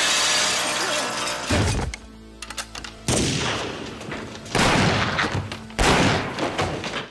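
Film action sound effects over a dramatic score: a crash of shattering glass and splintering blinds at the start, then several sudden loud bangs of gunfire.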